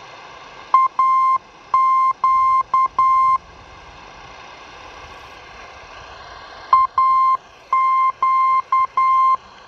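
Longwave radio beacon's Morse code identifier received on a Zenith Trans-Oceanic Royal 7000 shortwave portable: a steady beeping tone keyed in dots and dashes over background static. The same short group of letters is sent twice, about six seconds apart.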